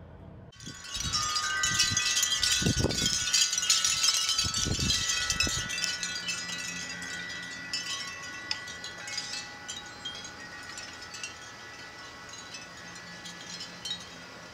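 Metal chimes set jangling all at once, then ringing on in several steady tones that slowly fade, with a few dull low thumps in the first few seconds.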